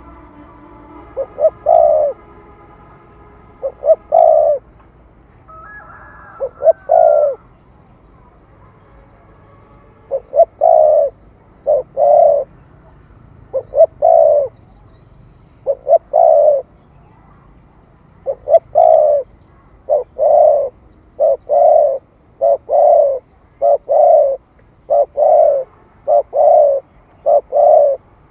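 Spotted dove cooing: repeated loud coo phrases, each a short note followed by a longer one. The phrases come with pauses at first, then follow one another about every second through the second half.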